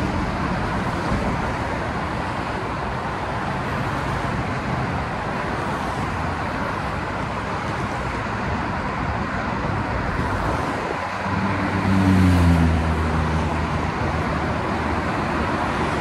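Steady roar of freeway traffic. About two-thirds of the way through, a passing vehicle's engine drone swells louder, then slowly drops in pitch and fades.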